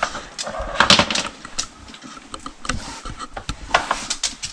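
Irregular light knocks and clatter of hard objects being pushed about, with a short scrape about a second in, as a small dog works at a treat game.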